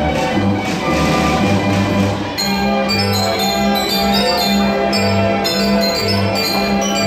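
Carousel band organ playing a polka, with a steady oom-pah bass and a beating percussion rhythm. About two seconds in, the percussion drops out and ringing bell-like notes carry the tune.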